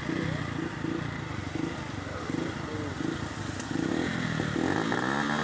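Motorcycle engine running, revving up about four and a half seconds in and then holding a steady higher note.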